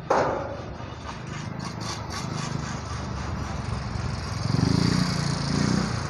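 Street traffic noise: a small motor vehicle's engine passes close, swelling to its loudest about four to six seconds in.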